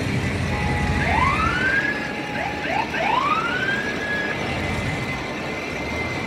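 Siren whoops: several rising sweeps that climb and level off, some overlapping at different pitches. One comes about a second in, a cluster of short ones follows, and the longest comes near the three-second mark, held for about a second. A steady low rumble runs underneath.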